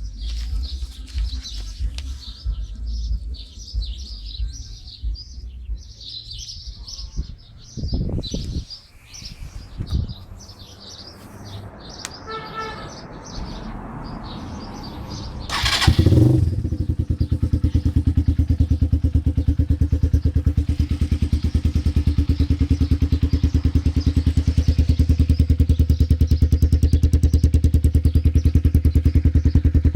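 Kasinski GF motorcycle engine starting about halfway through with a sudden burst, then idling steadily through a round Roncar aluminium sport exhaust. Birds chirp during the first half, before the engine starts.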